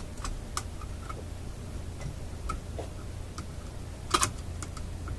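Small sharp clicks and taps of a screwdriver, screws and a metal plate being handled while the plate is fitted to a record player chassis. There are about a dozen irregular ticks, with one louder click about four seconds in.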